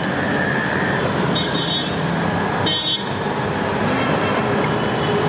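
Steady street traffic noise with two short, high vehicle-horn toots, about one and a half and three seconds in.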